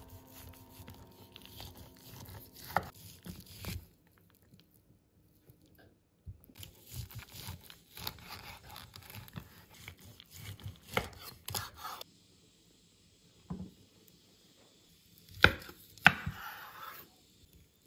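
A large kitchen knife sawing through a cooked smoked rolled ham, the blade rasping through the meat and rind in two stretches with quiet pauses between. Near the end, two sharp knocks as the blade comes down on the wooden cutting board.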